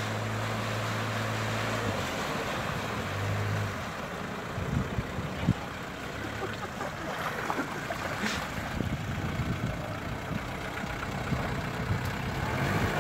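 Isuzu Bighorn 4x4 driving through a flooded track, engine running and water splashing around its wheels. The engine hum is steady for the first two seconds, then turns uneven as the truck works through the water, with a few knocks midway.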